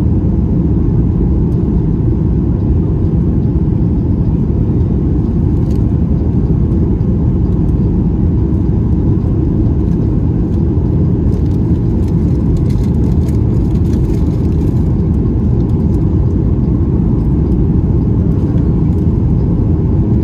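Steady cabin noise of a Boeing 737-8 MAX in flight: a deep, even rumble of its CFM LEAP-1B engines and the air rushing past the fuselage.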